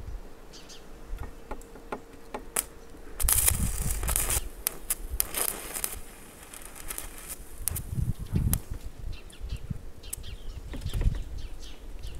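Stick-welding arc powered by car batteries: a few short snaps as the rod is struck on the steel, then about three seconds of loud continuous crackling as the arc holds, followed by scattered snaps and shorter bursts of crackling.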